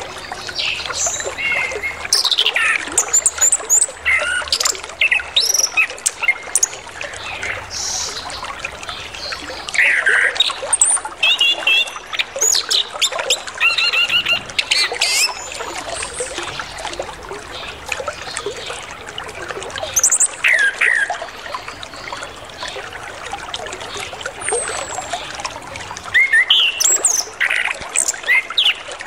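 Chestnut-capped thrush singing a varied, mimicry-filled song of quick whistles, slurred notes and short trills, over the steady trickle of flowing water.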